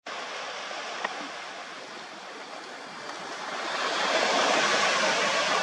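Steady hiss of small sea waves washing on a beach, with some wind, growing louder about four seconds in. A single short click about a second in.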